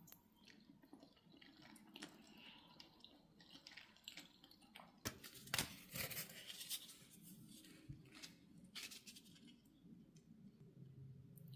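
Faint sounds of someone eating: soft chewing with small clicks, busiest for a couple of seconds near the middle.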